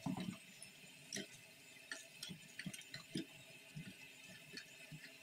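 Tap water running steadily into a stainless steel sink while a raw tongue is rubbed and turned under the stream, with irregular wet slaps and small knocks against the sink.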